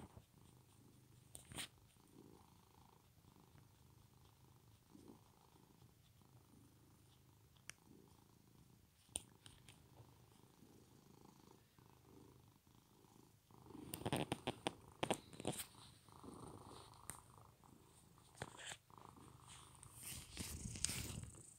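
Domestic cat purring quietly while being stroked, a sign of a relaxed, content cat. Louder rustling and handling noise comes in twice, about two-thirds of the way through and near the end.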